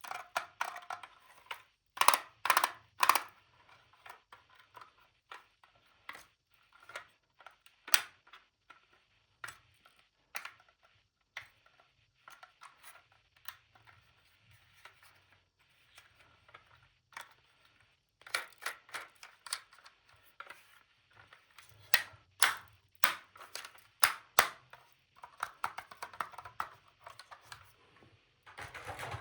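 Plastic toys and their packaging handled close to the microphone: scattered sharp clicks and taps with soft rustling between them. Three loud clacks come about two to three seconds in, and a quicker run of taps follows in the second half.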